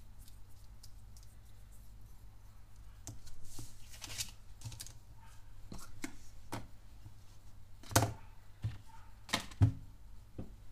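Pen refills and their paper and cardboard packaging being handled: a paper rustle about three to four seconds in, and scattered clicks and taps, the sharpest about eight and nine and a half seconds in.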